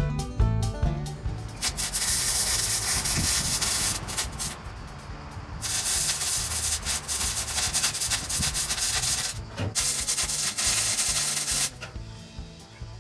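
Stick arc welding on a steel oil drum: a steady crackling sizzle from the arc in three runs of a few seconds each, the last cutting off near the end. Background music with a steady beat plays underneath.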